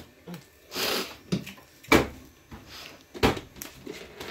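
Kitchen clatter while cooking: a short scraping hiss about a second in, then sharp knocks of utensils or cookware, the loudest about two seconds in and another about three seconds in.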